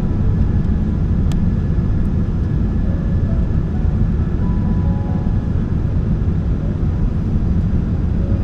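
Steady low roar of a jet airliner's engines and rushing air, heard from inside the cabin on the approach.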